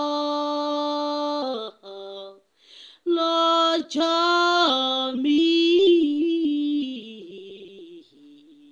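A woman singing unaccompanied. She holds a long note until about a second and a half in, then sings a few more phrases after a short break and trails off quietly near the end.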